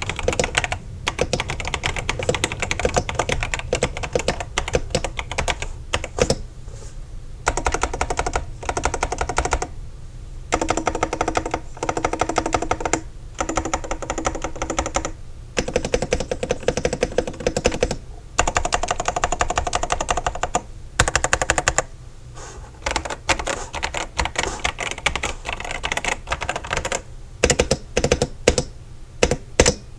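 Typing on an Epomaker DynaTab 75 mechanical keyboard with Flamingo linear switches and PBT keycaps: quick runs of keystrokes with short pauses every few seconds.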